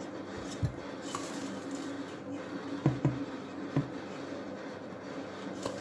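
A few soft taps and light thuds as fingers press a crumb coating onto a raw fish fillet on a slate board, over a steady low hum.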